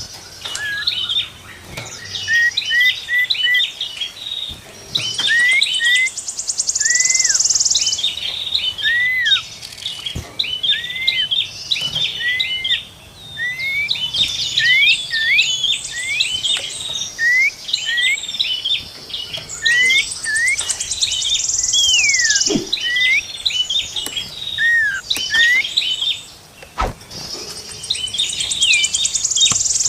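Small songbirds singing: rapid strings of short whistled notes that slide up and down, broken every several seconds by high buzzy trills.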